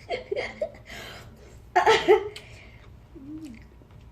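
A person laughing in short, breathy bursts, the loudest about two seconds in.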